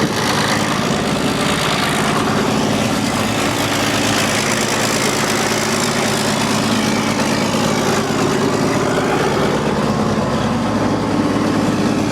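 Chevy 350 small-block V8 truck engine running steadily at idle, at an even, unchanging speed.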